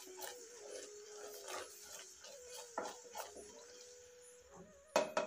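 Wooden spatula stirring and scraping bubbling melted jaggery syrup in a nonstick pan, with two sharp knocks near the end, over a steady, slightly wavering whine.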